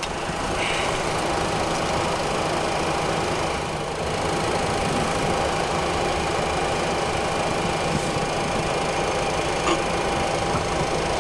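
Boeing 737-400 jet engine number one being started with its air starter, heard from inside the cockpit as a steady hum with a constant whine that swells slightly at first.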